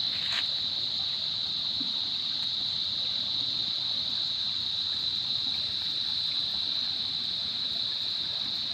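Steady high-pitched insect drone over a low hiss, likely flowing water.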